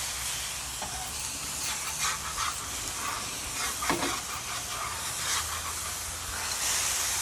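Chicken smashed thin onto tortillas sizzling in olive oil on a very hot griddle, a steady frying hiss. A few brief knocks come through, the clearest about four seconds in.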